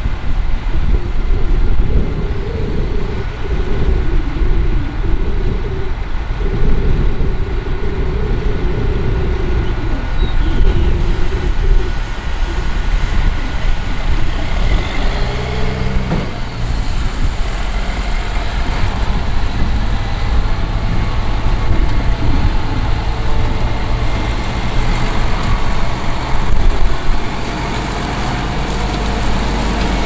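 Fendt 1050 Vario tractor's 12.4-litre MAN six-cylinder diesel running under load while it drives the Brent 1596 grain cart's unloading auger, with corn pouring out of the spout. About halfway through the sound changes to a steadier low engine note.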